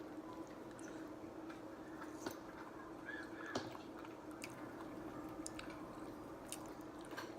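A person chewing a mouthful of shrimp Alfredo pasta, soft wet mouth sounds with a few light clicks, over a steady low hum.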